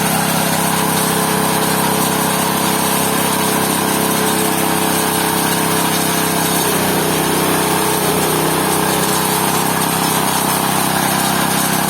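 GT-14S fruit-and-waste pulping machine running steadily and loudly while grinding papaya into pulp. Its tone shifts slightly about six and a half seconds in.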